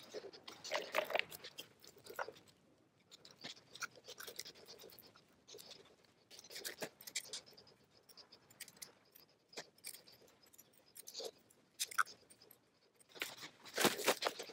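Irregular crinkling, rustling and scratching of plastic wrap and resin-soaked cloth worked by gloved hands in a box mold, loudest in a burst just before the end.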